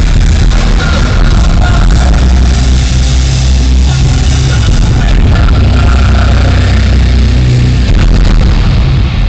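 Nu-metal band playing live at full volume, picked up by a handheld camera's overloaded microphone. The result is a distorted, muddy wash dominated by the bass and drums, with the guitars and vocals barely picked out.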